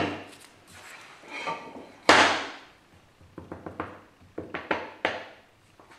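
A hand plane set down on a wooden workbench with a sharp knock, then the sounds of a small wooden board being handled: a swishing rub of hands over the wood and a run of light wooden taps and clicks.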